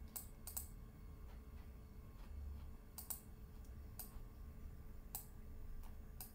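A handful of sharp computer mouse clicks, irregularly spaced and some in quick pairs, over a faint low steady hum.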